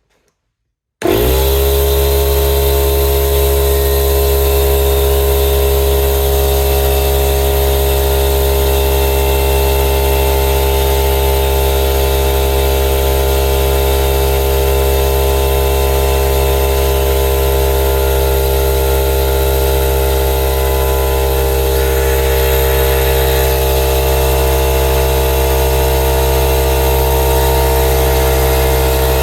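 Stanley 24-litre, 8-bar oil-free air compressor switching on about a second in and running steadily, its motor-driven pump filling the tank with air.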